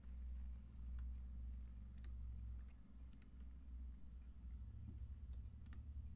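Computer mouse clicks: a handful of short, sharp clicks, several in quick press-and-release pairs, over a low steady hum.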